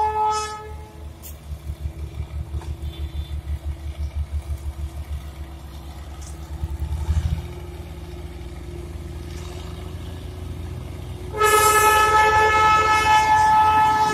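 Darjeeling Himalayan Railway toy train's diesel locomotive sounding its horn, one steady tone that stops just under a second in. Then its engine runs with a pulsing beat of about four a second that evens out near the middle, and the horn sounds again, long and steady, for the last three seconds or so.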